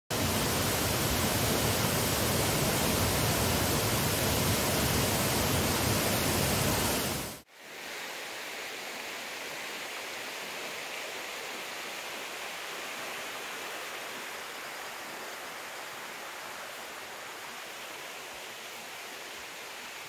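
Loud, steady roar of a waterfall that cuts off suddenly about seven seconds in. It is followed by a quieter, thinner steady rush of more distant running water.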